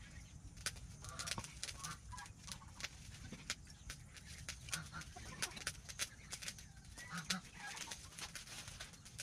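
Cleaver slicing raw beef on a wooden chopping board: irregular sharp taps of the blade on the board, a couple each second. Chickens cluck a few times.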